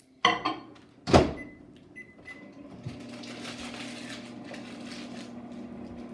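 Microwave oven being started: two knocks of its door, two short beeps, then the steady hum of it running from about three seconds in.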